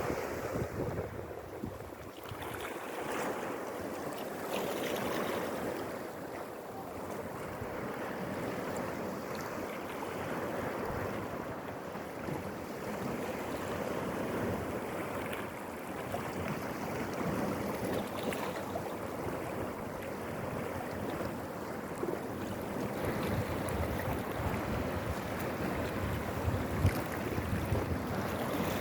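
Sea waves washing and breaking against rocks and a pebble shore, a continuous rushing surf that swells and eases.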